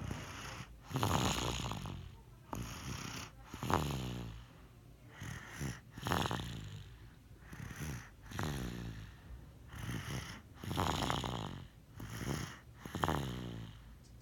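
Steady snoring: about six snores, roughly one every two and a half seconds, each sliding down in pitch.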